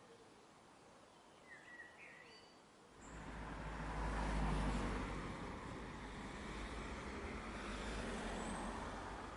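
A few short bird chirps, then about three seconds in a vehicle passing: a rushing noise with a low rumble that swells, peaks a second or so later, holds, and cuts off sharply at the end.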